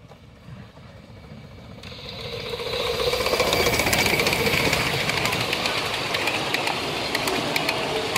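7¼-inch gauge miniature steam train approaching and passing close by. The locomotive and then its passenger carriages rumble and clatter over the track with a run of sharp wheel clicks. The sound grows over the first few seconds and is loud from about three seconds in.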